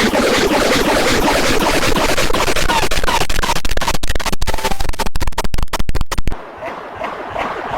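Heavily distorted, effects-laden edit of an Argentine emergency alert recording: loud glitchy noise chopped by rapid stuttering clicks, falling to a quieter, thinner sound about six seconds in.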